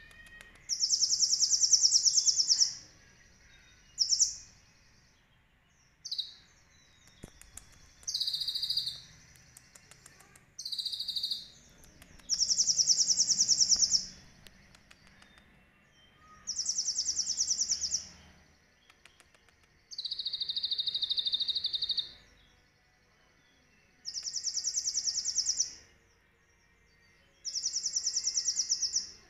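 Caged male kolibri ninja sunbird singing loud, high, rapid trilling phrases in bursts of up to about two seconds every few seconds, about nine in all, with soft twittering between them. It is a song the owner calls full of cililin imitations.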